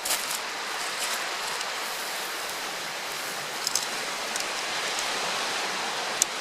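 Miso-marinated pork loin sizzling steadily as it grills, with a few small pops.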